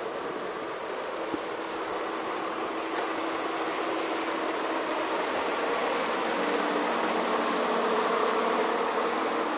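City street traffic: motor vehicle engines running close by, with a steady tone over a wash of road noise.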